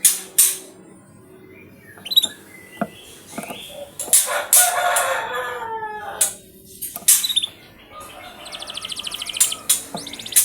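Canary sounds: sharp flutter-like clicks scattered through, a lower falling call in the middle, and a rapid high trill of quick repeated notes building near the end.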